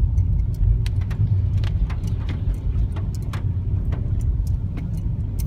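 Car cabin noise while driving on a wet road: a steady low rumble of the engine and tyres, with scattered sharp ticks.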